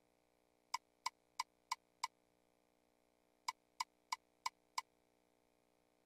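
Video slot machine's reel-stop sounds: five short electronic clicks about a third of a second apart as the five reels land one after another. After a pause of about a second and a half, five more follow for the next spin.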